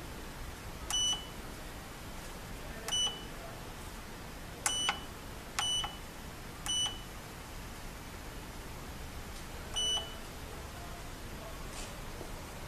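Keypad beeps from the digital temperature controller of a manual glue binding machine: six short, high electronic beeps at uneven intervals as its buttons are pressed to set the temperature to 170 °C. A faint steady hiss sits underneath.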